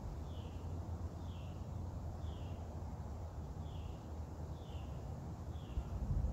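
Wind buffeting the microphone as a steady low rumble, with a bird repeating a short falling chirp about once a second.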